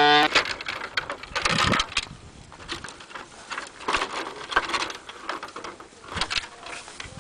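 A blast on a plastic horn cuts off just after the start. Then comes irregular clattering and knocking as wooden folding-kayak frame sections and poles are picked up and stacked on gravel.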